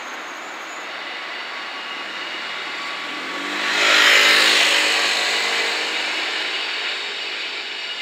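Freight locomotive creeping along curved yard track, with a steady hiss and faint high wheel squeal. About halfway through an engine sound swells up loudly and fades away over a couple of seconds.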